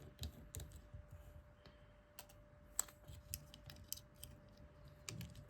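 Faint, irregular clicks and taps of a small precision Phillips screwdriver working a tiny screw out of an iPhone 3GS's logic board, with a few sharper clicks.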